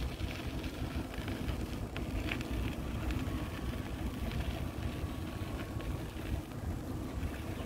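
City street ambience: a steady low rumble of traffic with wind buffeting the microphone, scattered light clicks and knocks, and a faint thin whine for a few seconds in the middle.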